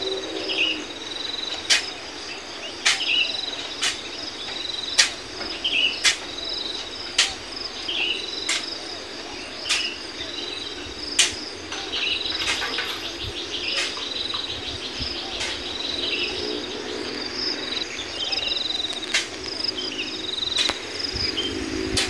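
Crickets chirring in a steady high drone with birds chirping, over sharp clicks about once a second.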